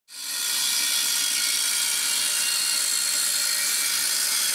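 Angle grinder with a cut-off wheel cutting through 3.5-inch steel exhaust tubing: a steady high whine over a grinding hiss, coming in within the first half second.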